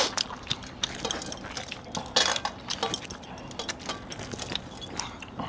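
Hands eating chicken curry from steel plates: scattered small clicks and clinks as metal rings and bracelets tap the plates, with a denser burst of clinks about two seconds in.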